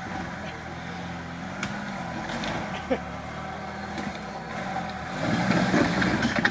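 Jeep engine running at low revs as the vehicle crawls over rocks, with a few light knocks, then rising louder with more throttle about five seconds in.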